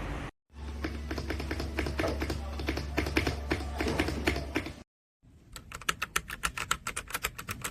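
Typing on a ZIYOU K3 mechanical keyboard with red linear switches: quick keystrokes in two stretches, each after an abrupt cut to silence. The first stretch runs over a low hum. The second, starting about five seconds in, is an even run of about five keystrokes a second.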